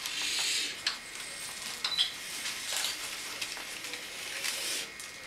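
Paper pattern pieces rustling and being handled close by, with scattered light clicks and taps. The rustle is strongest in the first second.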